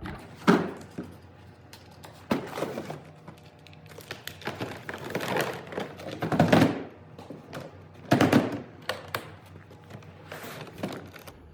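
Booth lights and gear being set into the cutouts of a shipping case: a handful of separate thunks and knocks of handling, the loudest about six and a half and eight seconds in.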